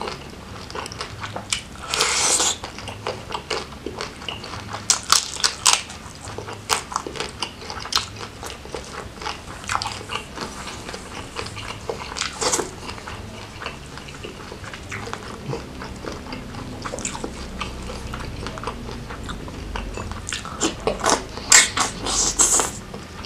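Close-miked eating of crab and jumbo prawns in Padang sauce: wet chewing and biting with many sharp clicks and crunches, and a few louder bursts about two seconds in, near the middle and near the end.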